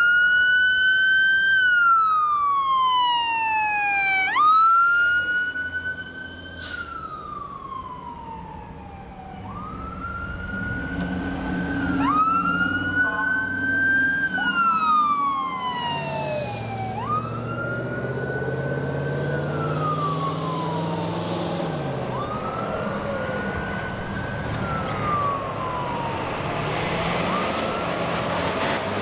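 Fire truck sirens wailing as the trucks pull out. Each sweep rises quickly and falls slowly, repeating about every four seconds, and two sirens overlap around the middle. A diesel truck engine accelerates underneath partway through.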